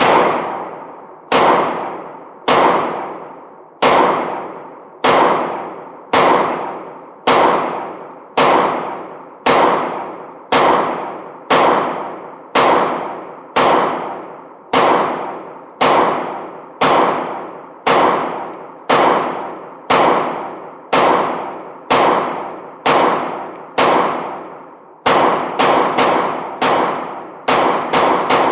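Glock pistol firing slow, steady single shots about once a second, each report ringing out for about a second, then a quicker run of shots near the end.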